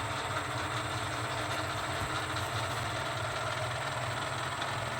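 Ajax universal milling machine's feed drive running steadily with a constant hum and a high whine, lowering the table.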